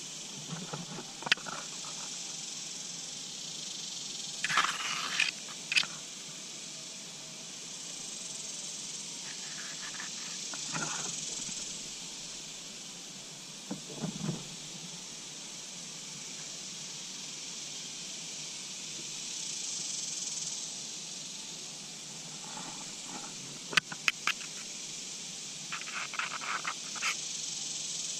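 Steady high-pitched insect chorus that swells and fades slowly a couple of times. Short sharp clicks and rustles are scattered through it, the sharpest about a second in and near twenty-four seconds.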